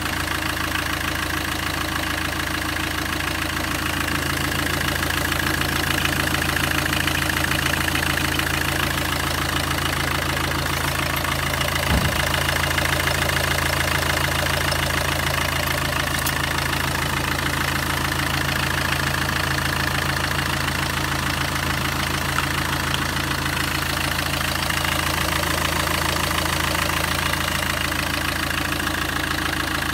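Citroen Evasion's 2.0 HDi DW10ATED (RHZ) four-cylinder common-rail turbodiesel idling steadily, with an even, rapid diesel clatter over a low hum. There is one brief low bump about halfway through.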